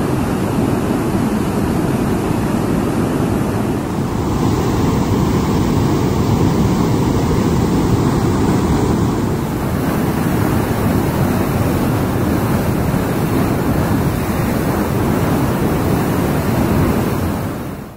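Large volume of canal water rushing and churning down a concrete channel, a loud, steady rush of white water with most of its weight in the low end.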